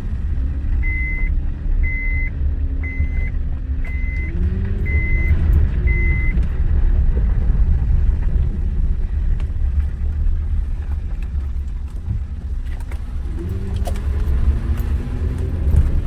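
Inside the cab of a 2007 Honda Ridgeline with its 3.5-litre V6, driving slowly through turns on a dirt road: a steady low road rumble, with the engine note rising as it accelerates about four seconds in and again near the end. No moan comes from the rear differential under load in the turns, the sign that fresh differential fluid has cured the clutch moan. Six short beeps about a second apart sound in the first six seconds.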